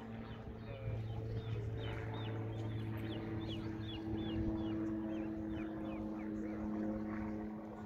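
Small birds chirping in a quick, repeated series of short high calls over a steady low engine hum.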